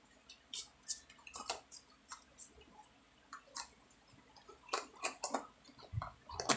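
Clear plastic food-container lids being handled and pressed onto their containers: a scattering of light, sharp plastic clicks and taps, with a few louder ones about five seconds in and a duller knock near the end.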